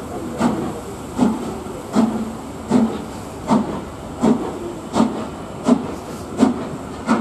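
Four-cylinder LMS Coronation Pacific steam locomotive working slowly, its exhaust beats sharp and evenly spaced at about one every three-quarters of a second, about ten in all. Under them runs the steady rumble of the train's coaches rolling by.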